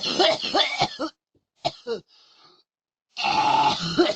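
A man coughing hard in fits: a run of harsh, chesty coughs, two short coughs a little before two seconds in, then another fit starting about three seconds in. The cough sounds pretty bad, like pneumonia or something.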